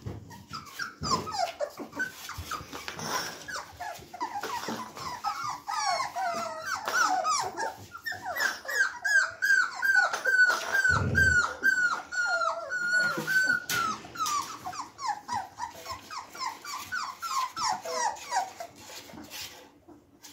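A litter of 26-day-old puppies whining and yelping: a long string of short squeals that each slide down in pitch, coming in a steady run of about two a second through the middle, with a low thud about eleven seconds in.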